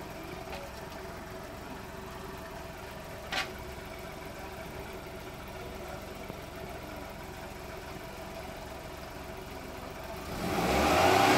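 Car engine idling steadily, with one short click about three and a half seconds in. Near the end the engine is revved up and gets much louder, its pitch rising.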